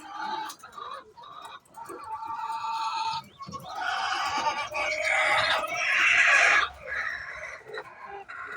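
Hen calling before laying an egg: a few short pitched clucks, then from about three and a half seconds in a louder, harsh, drawn-out squawking that stops near seven seconds.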